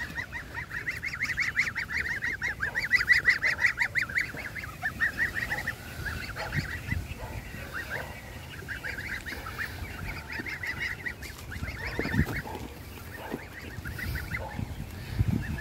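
Young goslings and ducklings peeping together: a dense run of quick, high chirps, busiest in the first few seconds and thinning out afterwards.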